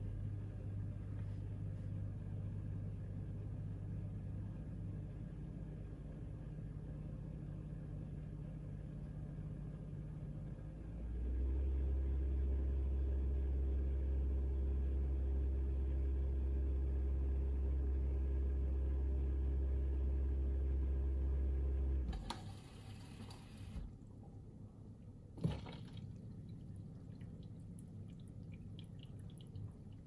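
Bosch dishwasher running early in its Pots and Pans 70°C programme: a steady pump hum that steps up louder about a third of the way through, then cuts off suddenly. A brief rush of water follows, then a single sharp click and quieter water trickling and dripping.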